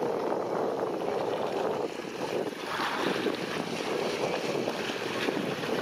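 Wind buffeting the microphone over choppy seawater, a steady rushing noise that rises and falls in gusts.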